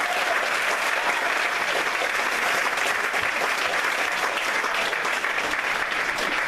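Congregation applauding, a dense and steady clapping.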